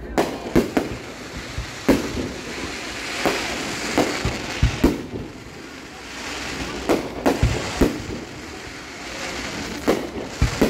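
Aerial fireworks shells bursting overhead: about a dozen sharp bangs at irregular intervals, some in quick pairs, with a short lull around the middle.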